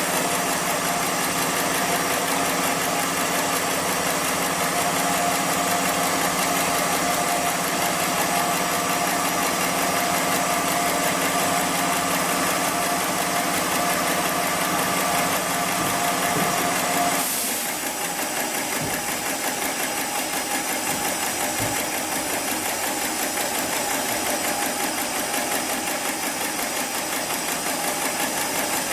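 Heavy-duty programmable pattern sewing machine for thick webbing running with a steady mechanical hum. About seventeen seconds in, the pitched part of the hum cuts out and the level drops a little, leaving a steady machine noise.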